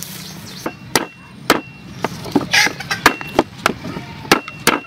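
Cooked lobster claw being cracked open by hitting it with a wooden pounder: about ten sharp knocks at an uneven pace.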